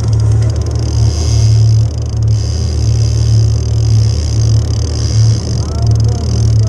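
Jet ski engine running steadily with a deep, even hum.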